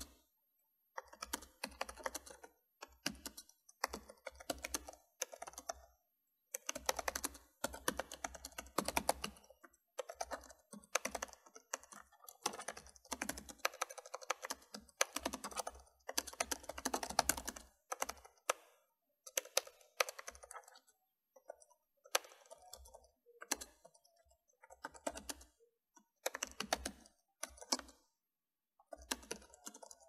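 Typing on a computer keyboard: runs of rapid key clicks, each a second or a few long, broken by brief pauses of complete silence.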